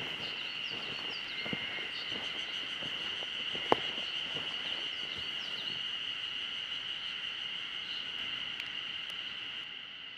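A steady high-pitched insect drone with short bird chirps over it, and footsteps on a leaf-littered forest trail. A single sharp click stands out a little before four seconds in.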